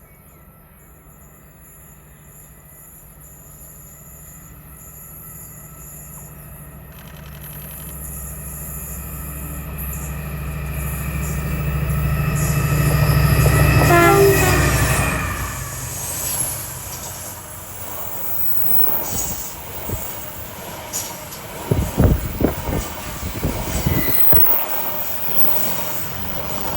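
Colas Class 70 diesel locomotive 70814 working hard uphill with a loaded rail train: its engine note builds steadily as it approaches, is loudest about halfway through as it passes, and drops in pitch. The rail wagons then roll by with a run of rattling and heavy knocks.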